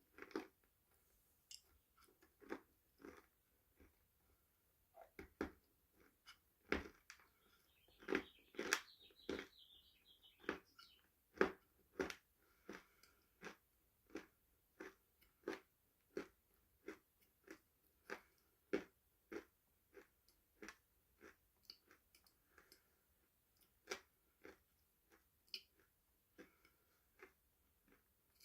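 Close-up chewing of crunchy food: a steady run of sharp crunches, about one or two a second.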